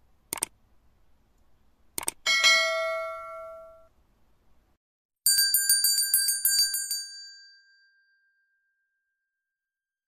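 Subscribe-and-bell sound effects: two short clicks, then a bright ringing ding about two seconds in that dies away, then a quick jingling bell ring about five seconds in that fades out.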